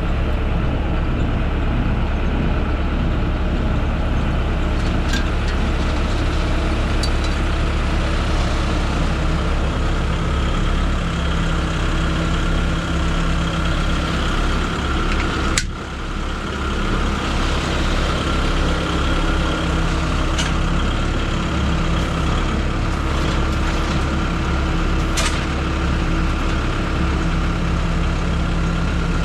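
An engine idling steadily with a low hum, with a few faint clicks or knocks along the way.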